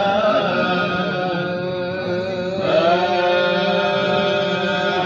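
Male voices chanting an Egyptian ibtihal, Islamic devotional song, in a long melismatic line held on the vowels, with a new sung phrase beginning about two and a half seconds in.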